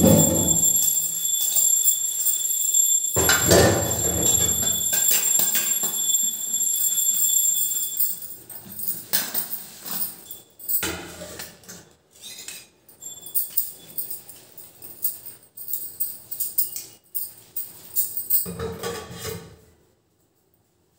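Stainless-steel dishes and pots clinking and clattering as they are handled and stacked for washing, with irregular sharp metallic clicks throughout the second half. A few dull knocks and a steady high-pitched tone come in the first few seconds.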